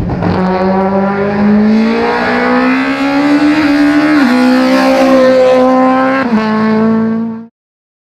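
A Peugeot 106 S16 hillclimb car's 1.6-litre four-cylinder engine at full throttle, revving high and slowly climbing in pitch, with two brief dips in pitch about four and six seconds in. The engine sound cuts off abruptly near the end.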